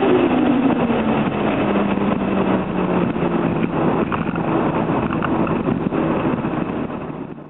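The turbocharged straight-six of a high-powered JZA80 Toyota Supra running on the road. The revs fall just after the start, then the engine holds steady revs over dense road noise. The sound fades out near the end.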